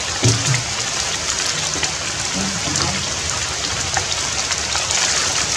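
Steady rainfall, an even hiss with scattered drops ticking.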